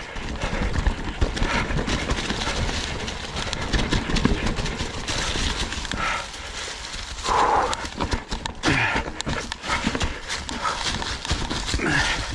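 Mountain bike (Ibis Ripmo) clattering over a rocky trail while being ridden: tyres, suspension and frame knocking and rattling in a dense, irregular run of impacts over a low rumble.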